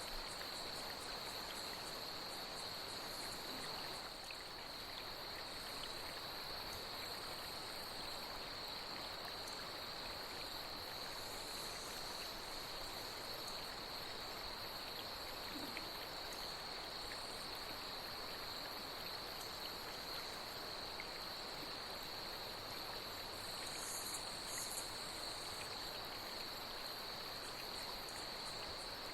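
Night insects chirring in one steady high-pitched drone over the even rush of flowing water, with a few brief higher chirps about 24 seconds in.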